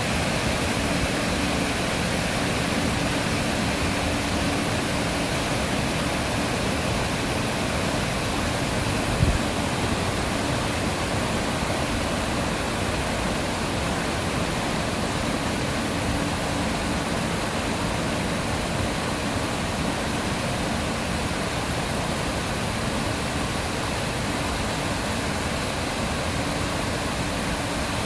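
Artificial waterfall: water pouring down in a steady, even rush. A single short low thump about a third of the way through.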